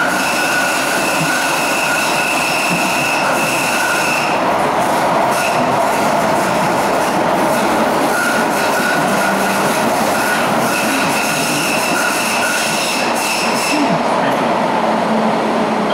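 Düsseldorf Stadtbahn light-rail car running, heard from inside the car: a steady loud rumble of wheels on the track, with a high wheel squeal for the first few seconds and again from about eight seconds until near the end.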